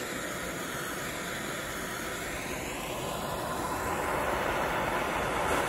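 Handheld blowtorch burning with a steady hissing flame, getting somewhat louder past the middle as the flame is brought onto metal disc brake pads.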